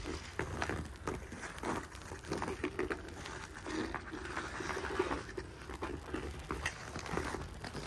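Hockey skate blades scraping and carving on outdoor ice in irregular strokes as a skater strides and turns, with a steady low rumble underneath.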